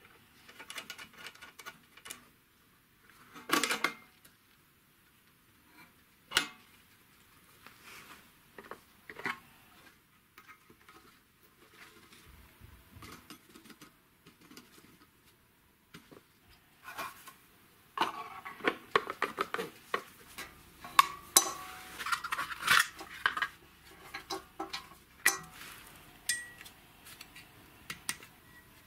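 Scattered clicks, taps and clinks of hand tools and small metal parts being handled during assembly: a screwdriver working the terminal screws of a compressor pressure switch, and wire connectors on the compressor's electrical block. A brief louder scrape comes about three and a half seconds in, and the clicks crowd together in the second half.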